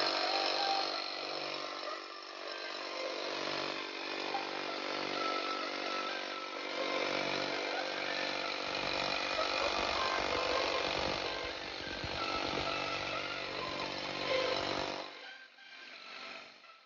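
Bosch GBH 18V-36C cordless SDS-max rotary hammer drilling into a concrete floor: a steady motor whine over a rapid hammering rattle as the bit bores in. About two seconds before the end the sound drops sharply and turns uneven.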